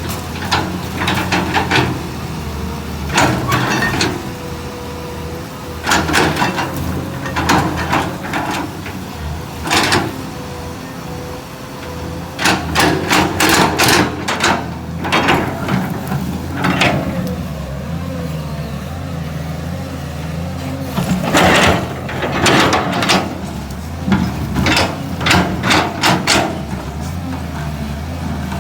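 Caterpillar 320 excavator's diesel engine running steadily under load, with repeated bursts of cracking, snapping and knocking as it pries eucalyptus stumps and roots out of the ground.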